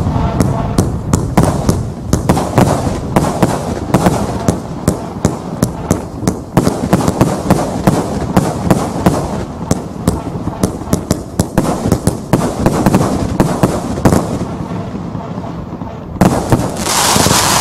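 An 80-shot 1.3G firework cake, Tai Pan Rio Grande, firing in rapid succession: a steady stream of launch thumps and bursting shells, several bangs a second, with crackling. About sixteen seconds in there is a stretch of steady hiss.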